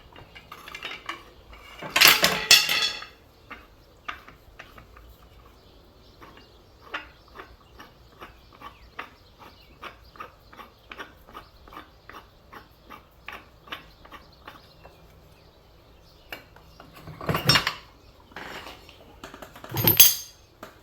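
Hand tools working on metal during ATV transmission removal: a loud clatter of metal about two seconds in, then a steady run of light clicks about two a second, and two loud metal clanks near the end.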